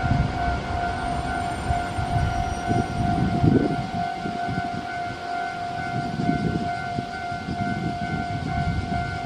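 A steady, slightly pulsing electronic warning tone at a railway line, over uneven low rumbling.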